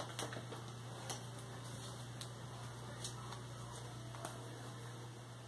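Faint scattered clicks and taps of sleeved playing cards being handled and set down on a playmat, five or so over a few seconds, over a steady low electrical hum.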